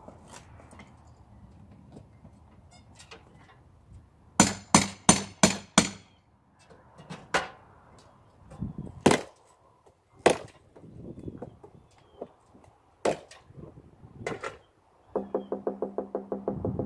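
Hammer blows on an old window frame as it is being removed: a quick run of about five strikes, then single blows a second or two apart. Near the end, a fast rattling of about seven clicks a second.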